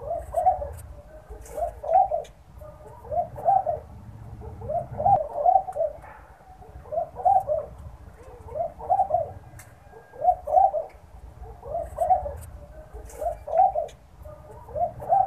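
Laughing dove (Senegal dove) cooing: short, bubbling multi-note phrases that rise and fall in pitch, repeated about every second or so.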